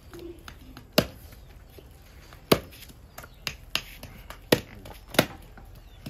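A heavy blade chopping pork: about five sharp chops at irregular intervals of roughly a second, with lighter knocks between them.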